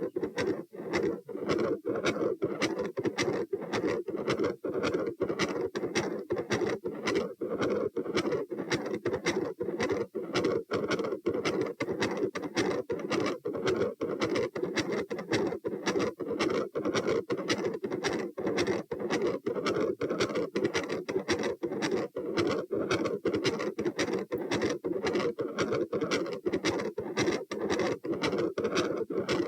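Human heart heard through a stethoscope at the pulmonic area, beating fast and regularly, with a murmur sounding between the beats.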